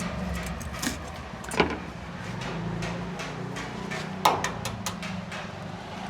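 Cooking utensils knocking sharply at a wok stall: two loud strikes, about a second and a half in and again near four seconds, with lighter clicks around them, over a steady low hum.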